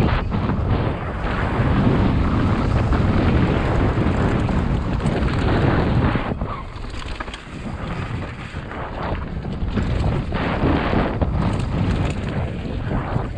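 Wind buffeting an action camera's microphone over the rumble and rattle of a mountain bike descending dry dirt singletrack at speed, with scattered knocks from the bumps. The rush eases for a few seconds about halfway through, then builds again.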